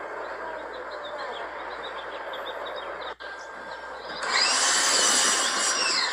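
Electric pressure washer: after a steady hiss with faint bird chirps, the pump motor kicks in about four seconds in with a quickly rising whine over loud spraying, holds, then winds down near the end as the trigger is released.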